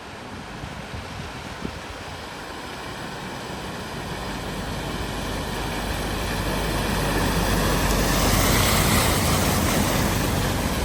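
A vehicle approaching and driving through floodwater, its engine rumble and the rush of water thrown up by its tyres growing steadily louder and peaking near the end.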